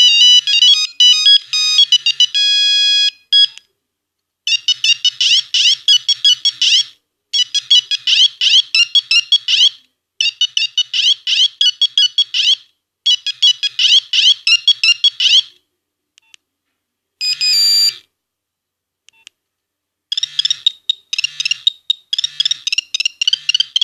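Nokia 1101 mobile phone playing its built-in monophonic ringtones one after another through its small speaker. A melody ends about three and a half seconds in, then a short, fast phrase plays four times with brief pauses between. A short burst of tone comes a little past the middle, and a new melody of quick notes starts near the end.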